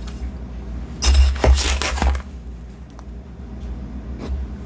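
Granulated sugar poured from a stainless steel measuring cup into a glass bowl of soy sauce: a grainy hiss for about a second. A few light clicks follow as the metal cup scoops into a plastic tub of sugar.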